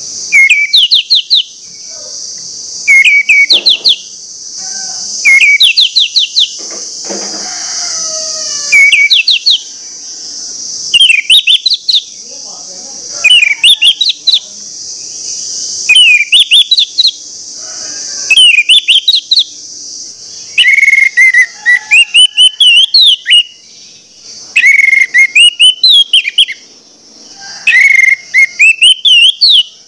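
Orange-headed thrush (anis merah) in full, insistent song: short phrases of quick rising notes repeated about every two seconds, growing longer and more varied in the second half, over a steady high hiss.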